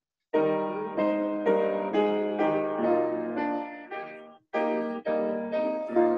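Piano playing slow chords, a new chord about every half second, each ringing and fading. The playing stops briefly about four and a half seconds in, then goes on.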